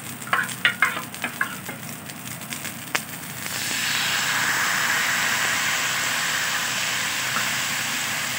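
Rice batter sizzling on a hot, ghee-greased griddle as it is poured, a steady hiss that starts about three and a half seconds in. A few short taps come before it.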